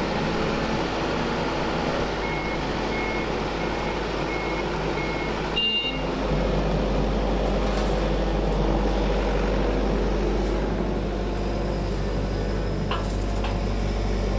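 Hydraulic excavator engine running steadily, with a warning alarm beeping about six short, evenly spaced times a couple of seconds in. A few light knocks near the end.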